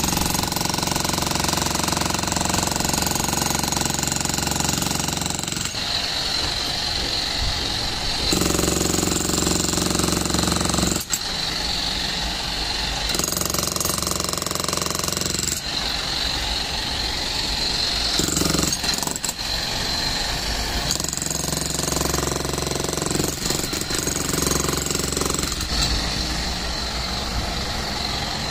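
Bosch GSH 11 E electric demolition hammer chiselling into concrete: a continuous rapid hammering, with a momentary break about eleven seconds in.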